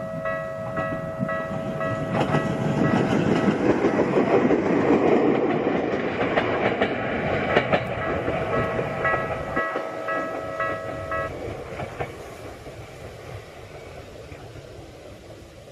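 Level-crossing alarm ringing its repeating electronic tone while a Bessho Line electric train runs through the crossing. The train's rumble swells, with wheels clicking over the rail joints, then fades as it moves away. The alarm stops about eleven seconds in.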